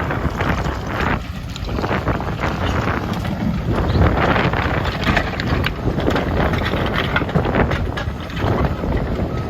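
Wind buffeting the microphone in uneven gusts, with a strong low rumble.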